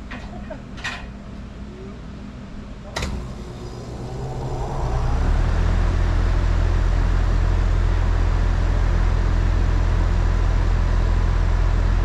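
2020 Goodman GSZ14 two-ton heat pump, with a rotary compressor under a sound blanket, starting up in cool mode. A sharp click comes about three seconds in. The condenser fan and compressor then rise in pitch to speed over a second or two and run on with a steady low hum and a rush of air.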